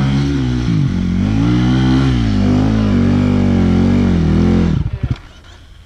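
Enduro dirt bike engine revving hard, its pitch rising and dipping several times under the throttle. It stops abruptly near the end, with a few crackles after.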